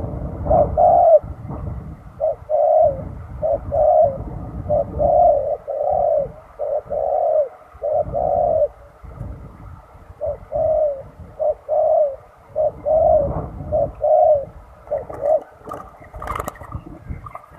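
Spotted dove cooing: a long string of short, repeated coos in two runs with a brief break in the middle.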